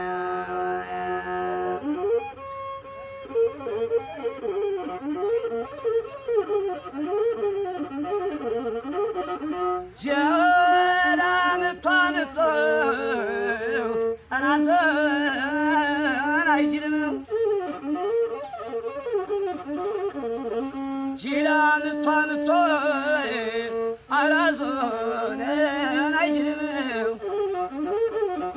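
Azmari music on the masinko, the Ethiopian one-string bowed fiddle, playing a wavering, ornamented melody. A voice joins in with sung phrases about ten seconds in and again a little past the twenty-second mark.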